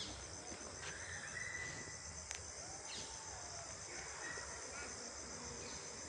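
A steady high-pitched insect trill, evenly pulsing, with a few faint clicks.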